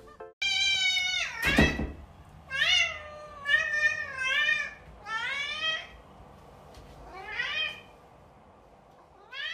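A cat meowing again and again: about eight meows, most short and rising then falling, a few drawn out, coming at uneven gaps. There is one brief thump about one and a half seconds in.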